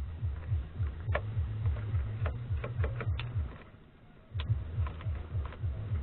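Background music with a repeating low bass pulse that drops out for about a second midway. Over it come irregular sharp clicks and taps from the metal mechanism of a Remington Noiseless No. 6 typewriter being worked on.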